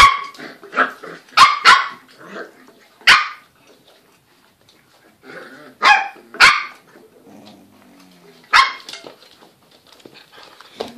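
Cockapoo puppies barking while playing together: about seven sharp, short barks at uneven intervals, with quieter yips between them and a short lull midway.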